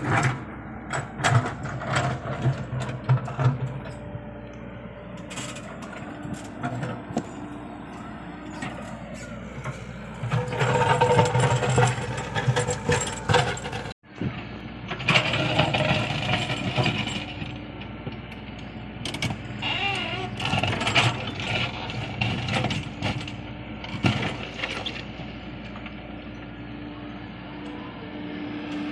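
Komatsu PC75UU excavator's diesel engine running under load, with repeated knocks, clanks and scraping clatter from its bucket working soil and stones. The sound drops out for an instant about halfway through.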